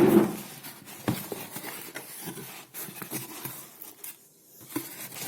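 Speaker box and packaging being handled and opened: a louder rustle at the start, then scattered light clicks and rustles.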